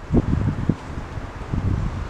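Wind buffeting the microphone in uneven low rumbling gusts.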